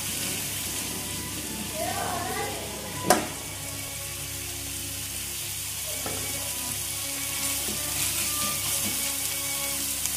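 Chopped green chillies, garlic and ginger sizzling steadily in a little oil in a kadai over low heat, stirred with a metal spatula that strikes the pan once with a sharp clink about three seconds in.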